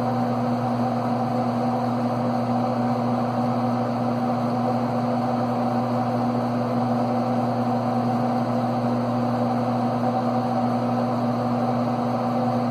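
DEC PDP-12 minicomputer's cooling fans and power supply running with a steady, unchanging hum.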